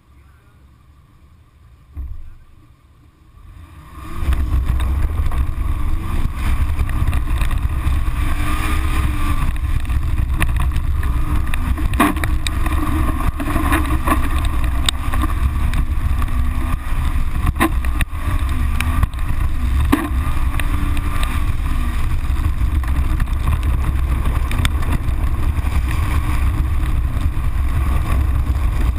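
Rallycross car sitting quietly, with a single knock about two seconds in, then launching about four seconds in and driving hard over grass and gravel. The engine revs rise and fall under heavy wind buffeting on the fender-mounted microphone, with stones and dirt clicking against the bodywork.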